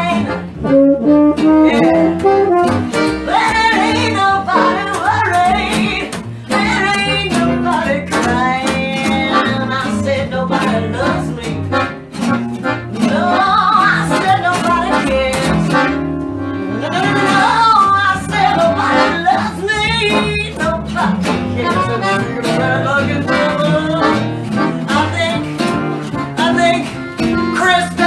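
Small band playing a blues in B flat: tenor saxophone, accordion, electric guitar and upright double bass together.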